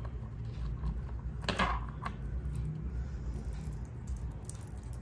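Small metal clinks and jingles of a silver Pandora charm bracelet and its charms being handled, with a brief scraping rustle about a second and a half in, over a steady low hum.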